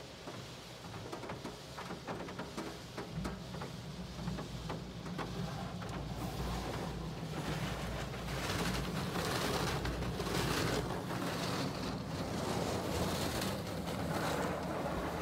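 Automatic car wash heard from inside the car: water jets spraying and pattering on the windows and body, with a low machine rumble underneath. It gets louder a few seconds in as the spray gantry passes alongside.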